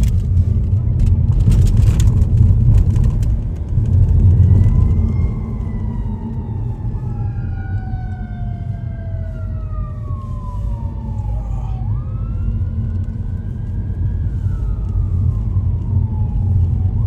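Emergency vehicle siren wailing in slow falling and rising sweeps, starting about five seconds in, over the steady low rumble of road traffic.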